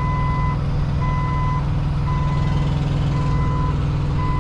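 Forklift backup alarm beeping as it reverses: a steady high beep about half a second long, once a second, five times in all, over the steady hum of an engine running.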